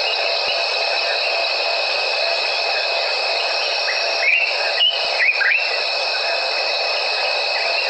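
Dense, steady chorus of night insects, with several high, unbroken trilling tones layered together. About four to five and a half seconds in, a few short chirping calls sweep in pitch over the top.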